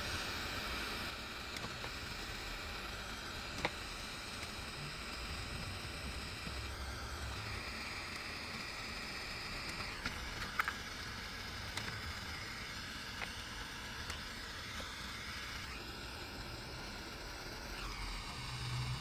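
Small butane torch burning with a steady hiss as it heats a plastic welder's tip, the hiss shifting in tone a few times, with a couple of faint clicks.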